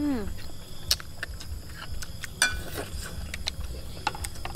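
Eating sounds: metal spoons clinking and scraping against ceramic plates, several sharp clicks, one with a short ring. Right at the start a brief falling "mm" from one of the eaters.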